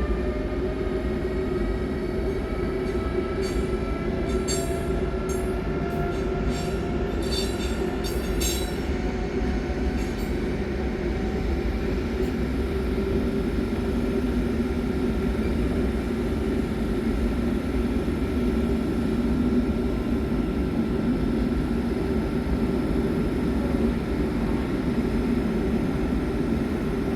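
Train running, with a steady low rumble and a whine that rises in pitch over the first dozen seconds and then holds steady. A run of high clicks comes from about three to ten seconds in.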